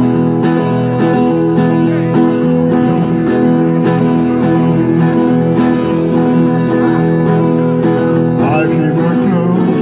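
Two acoustic guitars strummed together in a steady rhythm, played live through small amplifiers; a man's singing voice comes in near the end.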